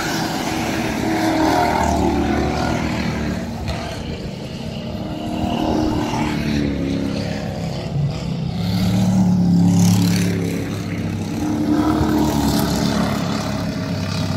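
Several V8 race cars with Ford 302 small-block engines racing past one after another, each engine swelling and fading as it goes by. The loudest pass comes about ten seconds in.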